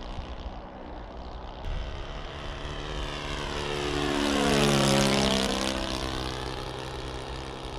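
A model aircraft's .70 four-stroke nitro (glow) engine and propeller in flight, making a low pass. The steady engine note grows louder toward the middle, drops in pitch as the plane goes by about four seconds in, then fades as it flies away.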